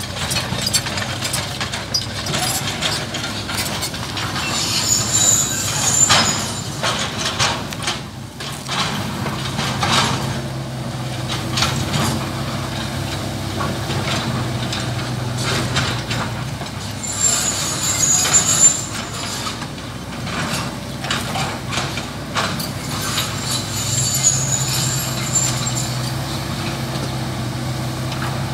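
Kubota KX161-3 mini excavator's diesel engine running steadily under load while it digs, with scattered knocks and scrapes from the bucket in soil and stones. A high-pitched metallic squeal sounds three times.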